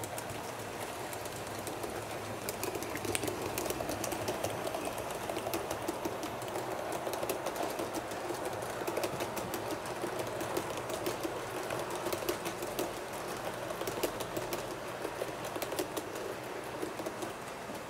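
Model passenger train running along model railway track, its wheels rumbling and clicking irregularly over the rail joints. The rumble grows louder about two and a half seconds in as the train comes closer, then eases near the end.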